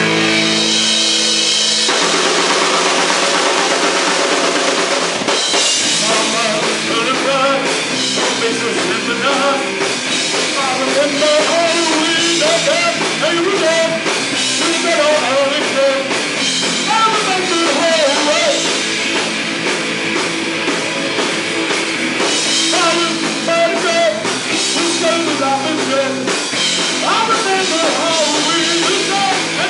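Live horror punk band playing loud: electric guitar, bass and drum kit, with vocals. It opens on a held chord before the full band comes in.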